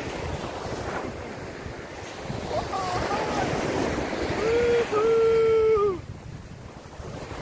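Surf breaking on a sandy shore with wind buffeting the microphone. A person's voice twice gives held, sung-out calls, the second, from about four and a half seconds in, the loudest; the sound drops after it.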